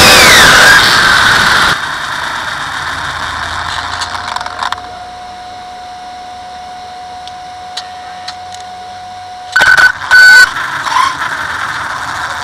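Brushless motor of an RC car (Castle 1717) running at speed under loud wind and road noise, its whine falling in pitch as it slows; the roar drops away about two seconds in. While the car sits still a steady high whine holds for several seconds, then near the end come short loud bursts of motor whine.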